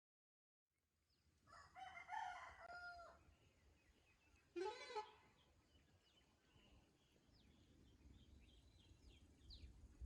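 A rooster crowing, then a second shorter call about halfway through, followed by faint small bird chirps.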